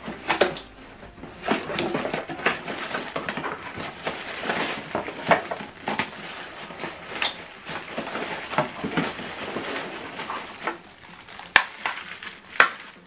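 Cardboard box flaps being opened and plastic-wrapped cables being pulled out, with crinkling, rustling and scattered sharp clicks and knocks throughout.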